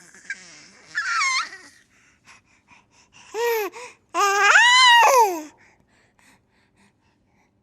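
A baby squealing and babbling happily. There is a short high squeal about a second in, then a long rising-and-falling squeal around the middle, with small mouth clicks between the calls.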